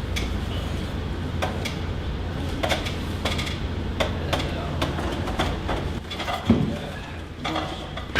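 Scattered sharp clicks and light knocks from a chiropractic adjustment session, with one heavier thump about six and a half seconds in, over a steady low hum.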